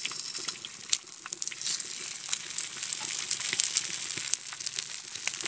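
Oil frying on a flat iron griddle under banana-leaf-wrapped fish parcels: a steady sizzling hiss with scattered crackles.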